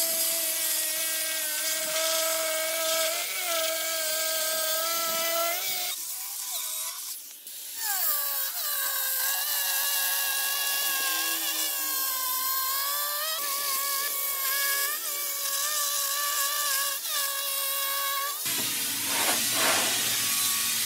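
Handheld electric stone-cutting saw running and cutting along a stone slab, with a steady motor whine. The whine falters about six seconds in and picks up again at a higher pitch. Near the end it gives way to a broad hiss.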